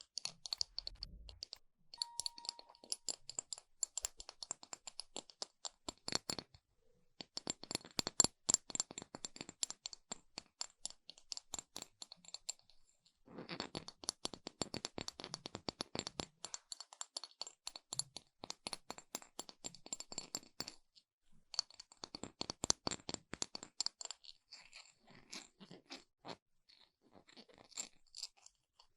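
Metal coins clinking and rattling together in four long runs of quick clicks with a faint metallic ring, broken by short pauses.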